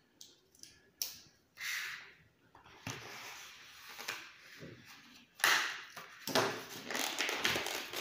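Stiff plastic blister packaging being handled and pulled open by hand, crackling and crinkling. There are a few clicks at first, and the crackling turns louder and denser from about five seconds in.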